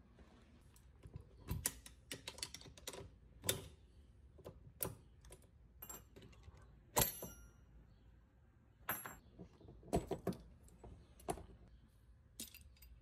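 Small metal parts and hand tools being handled, making irregular sharp clicks and clinks, some with a brief metallic ring. The loudest comes about halfway through.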